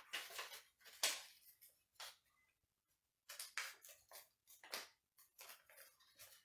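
A small slip of paper being folded and creased by hand, crinkling in many short rustles, with a pause of about a second near the middle.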